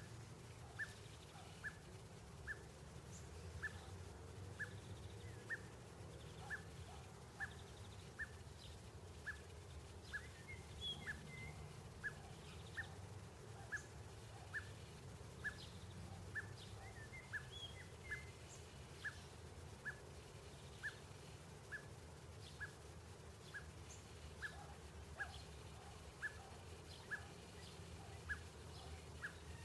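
A short, high chirp repeating steadily, a little faster than once a second, over a low background rumble, with a few fainter higher chirps in the middle.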